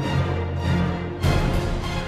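Background theme music with heavy bass and a pulsing beat.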